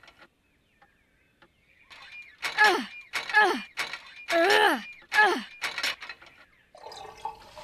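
A cartoon character's wordless voice: starting about two seconds in, two quick runs of short sounds, three then four, each sliding down in pitch. Music begins near the end.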